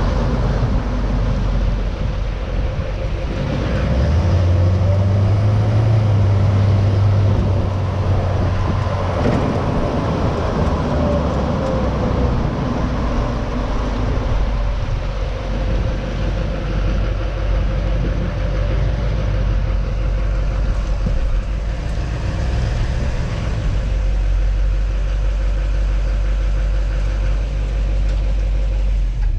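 A 2008 Chevrolet Silverado 3500 HD's Duramax LMM 6.6 L V8 turbodiesel running through its stock exhaust and muffler. It has a louder, deeper stretch from about four to ten seconds in.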